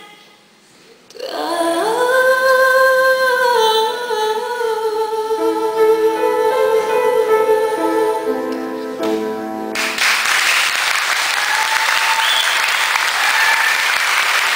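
A woman sings a long held note into a microphone, with a brief pause before it; the note ends about ten seconds in and an audience applauds through to the end.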